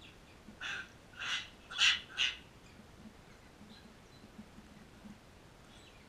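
Cockatoos giving four short, harsh screeching calls in quick succession in the first two and a half seconds, the third the loudest.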